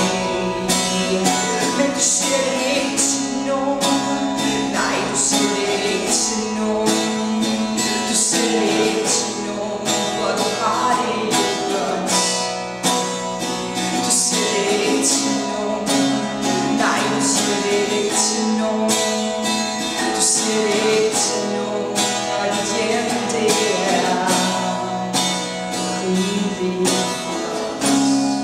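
Acoustic guitar strummed in a steady rhythm, with a woman singing over it at times.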